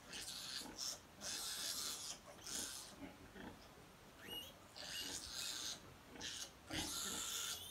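A litter of newborn piglets squealing while they crowd and jostle at a nursing sow's teats, in repeated short, harsh bursts with brief high squeaks among them.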